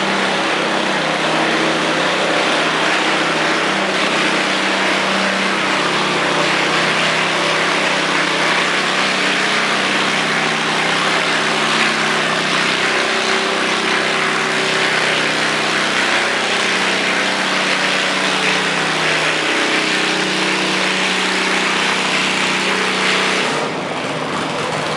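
Riding lawn mower engine running steadily under load while pulling a weighted sled; near the end the engine sound drops away as the pull ends.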